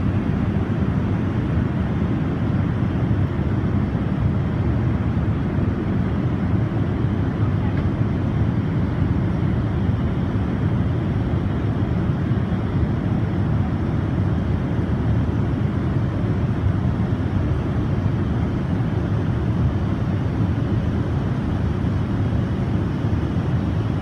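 Steady rushing cabin noise of an Airbus A380 in flight, airflow and engine noise heard inside the passenger cabin, deep and even with no change.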